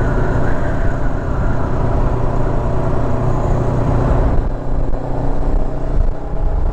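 Motorcycle engine running under way, with wind and road noise; about four seconds in the engine note drops away as the throttle eases off.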